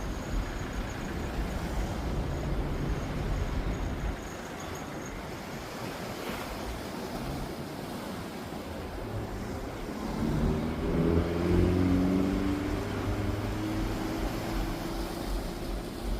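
Ocean surf washing, with wind buffeting the microphone in the first few seconds. From about ten seconds in, a motor's engine hum comes in over the surf, rising slightly in pitch and holding to the end.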